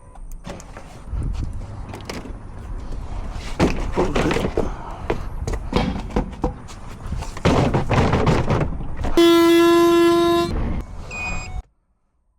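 A car horn sounds once as a steady held tone for about a second and a half, about nine seconds in, after irregular rustling and knocking noise; all sound cuts off suddenly near the end.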